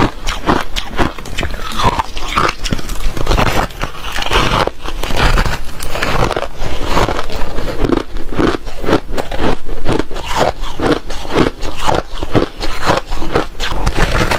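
Ice chips being bitten and chewed close to the microphone: a dense run of sharp, crackling crunches, several a second.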